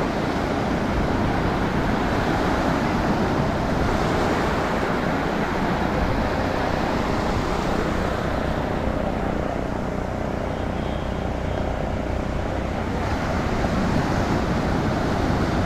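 A motorboat's engine running steadily at a constant pitch, under a continuous rush of wind and water noise.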